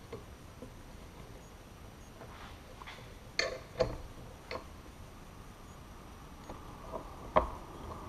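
A handful of sparse clicks and knocks as a heated polyurethane tire is stretched and pried onto the rim of a 14-inch bandsaw wheel with a hand tool; the loudest knock comes about seven seconds in.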